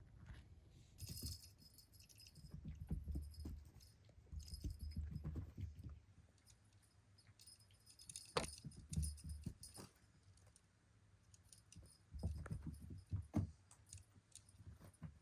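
A small metal bell jingling in short, irregular bursts, with soft knocks and rustling underneath.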